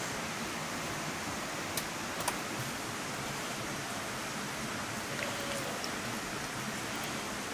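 Steady hiss of rain falling, with two short sharp ticks about two seconds in.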